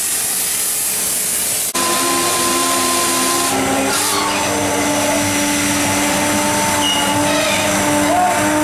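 A cutting torch hisses steadily for the first second and a half or so. After an abrupt change, a drill runs steadily with a whine at several held pitches that shift a little as it reams rivet holes in a new steel hull plate, pushed up from below.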